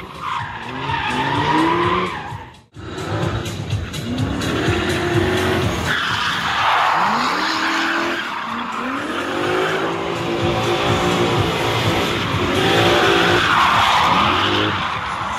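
Drift car's engine revving up and down again and again, with tyres squealing as it slides; the sound cuts out briefly once near the start.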